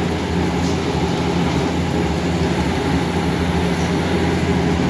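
Steady low roar with a constant hum from commercial kitchen equipment: the gas range under large steaming stockpots and the kitchen's ventilation.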